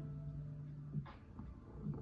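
Cat purring close up. The purr rises and falls with each breath, about every second and a half.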